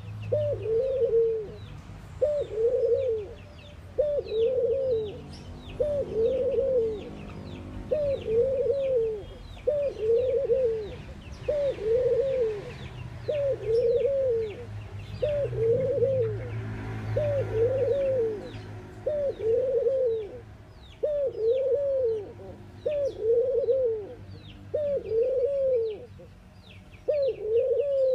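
A dove cooing in a long, steady series of short coos, a little under one a second, each rising and then falling in pitch. Small birds chirp faintly in the background.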